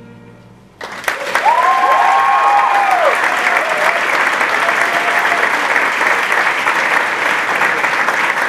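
The last held note of the song on voice and strings fades away. About a second in, a concert audience breaks into loud, steady applause, with a few rising-and-falling cheers in the first couple of seconds.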